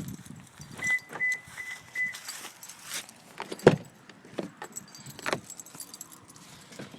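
Car keys jangling in the hand, with scattered small clicks. Four short high beeps come about a second in, and a single sharp knock, the loudest sound, falls a little past halfway.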